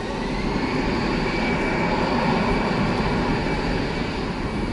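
Jet engines of an easyJet Airbus A320-family airliner running at high power as it rolls along the runway: a steady rushing noise with a fan whine that rises in pitch about a second in and then holds, swelling in the middle and easing toward the end.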